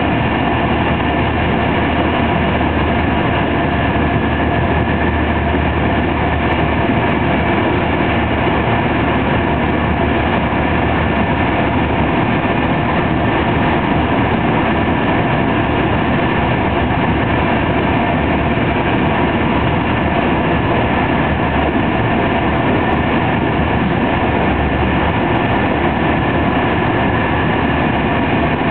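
Steady running noise inside a TER 200 train at speed: the wheels rumble on the rails as one continuous noise, with a few faint steady tones in it.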